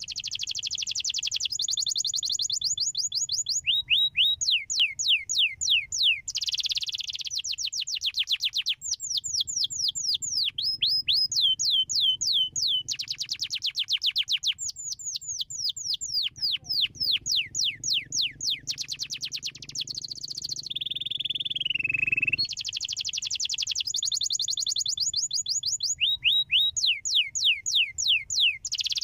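Domestic canary singing a long, continuous song of rapid trills, each made of fast repeated downward-sweeping notes, changing tempo from phrase to phrase, with one slower falling note about three quarters of the way through.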